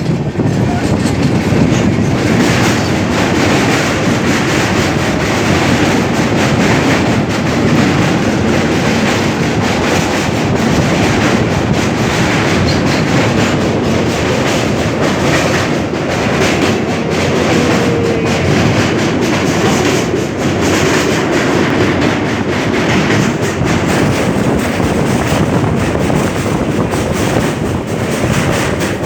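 Train crossing a railway bridge: a loud, steady rumble of the moving train with repeated clatter of its wheels.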